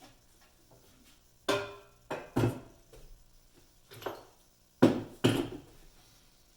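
Hand tools and metal parts knocking and clanking as they are moved about and set down, about six irregular knocks, some ringing briefly, the loudest near the end.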